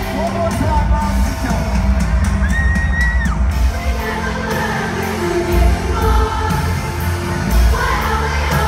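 Live band and male lead vocalist performing a slow pop-rock song, recorded from within the crowd in an arena.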